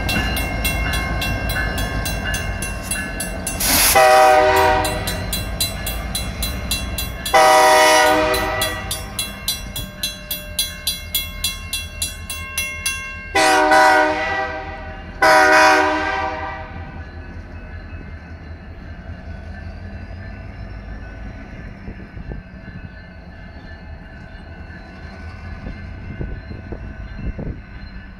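A mechanical crossing bell rings rapidly while two BNSF diesel locomotives rumble past and pull away. The locomotive horn sounds long, long, short, long, the standard grade-crossing warning. The bell stops about halfway through, leaving a quieter, fading engine sound.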